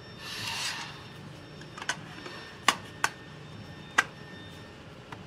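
Aluminium flat plate jig being handled and set in place: a brief scraping slide near the start, then several sharp knocks and clicks as the plate's frame is shifted and seated.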